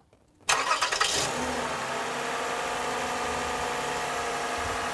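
Car engine started: near silence, then about half a second in a short crank that catches, and the engine settles into a steady idle.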